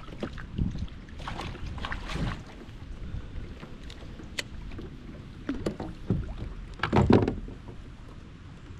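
Water splashing and knocks against a kayak as a hooked largemouth bass is fought to the boat and scooped into a landing net. The sounds come in irregular bursts, the loudest about seven seconds in.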